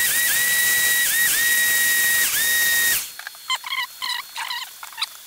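An electric air blower blasts air through a graphics card's aluminium heatsink fins to clear the dust. It makes a loud rushing hiss with a whistle on top that dips briefly three times, and it cuts off suddenly after about three seconds. A paintbrush then scrubs the fins in short, scratchy strokes.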